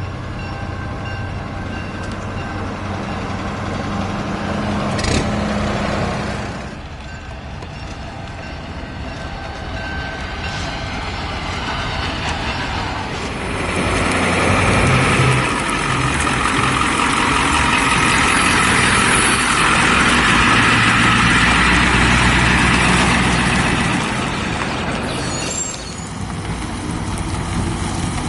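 Truck engine running as a vehicle pulls out and drives past, growing loud about halfway through and easing off near the end.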